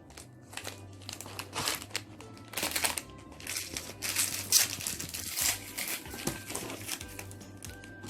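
Packaging crinkling and rustling in many irregular bursts as a toy box is opened and its wrapping handled.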